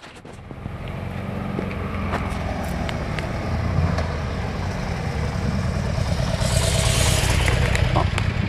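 Motorcycle engine running steadily, fading in over the first second. A hissing rush joins it about six and a half seconds in.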